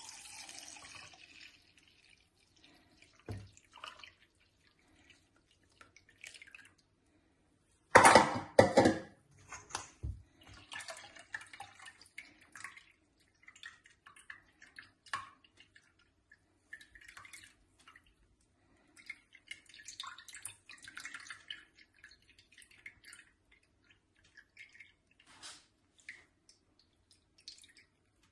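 Juice being poured and mixed in kitchen containers: intermittent splashing and dripping of liquid with scattered clicks of containers and utensils, and a loud cluster of knocks about eight seconds in.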